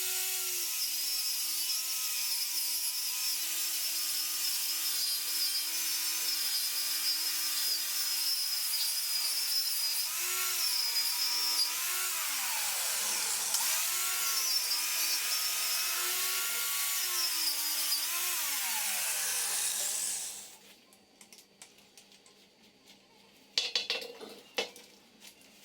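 Power tool spinning a wire wheel, scrubbing over welded steel with a steady motor whine and a scratchy hiss; about halfway through it slows and picks back up, then winds down and stops. A few short metallic knocks follow near the end.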